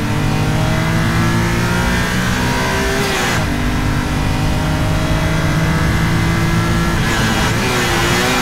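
Supercharged BMW E46 M3's straight-six engine pulling hard on track. Its pitch climbs slowly, drops sharply about three seconds in, then holds and rises again.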